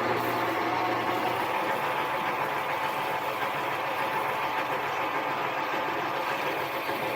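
Harbor Freight mini lathe running steadily while a drill bit bores a hole through the workpiece, near the point of breaking out the far side; the sound drops off right at the end.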